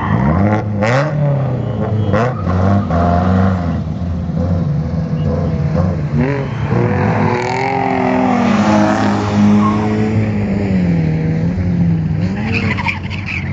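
Drift cars' engines revving, the pitch climbing and falling again and again with the throttle, with tire squeal from the cars sliding on asphalt, strongest around the middle.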